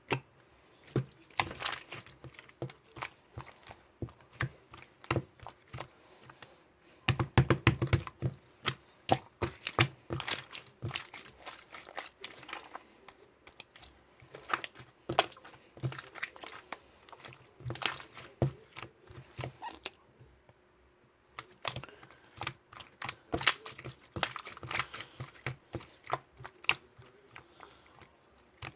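Irregular sharp clicks and taps, like objects being handled or keys being pressed, with a dense flurry about seven seconds in and a lull around twenty seconds.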